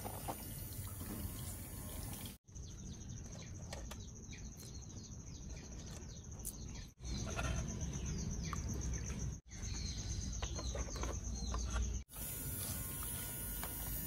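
Outdoor ambience in several short clips spliced together: small birds chirping throughout, and water sloshing as a plastic toy boat is pushed by hand through a muddy puddle in the middle. A thin, steady, high whine runs through the middle clips.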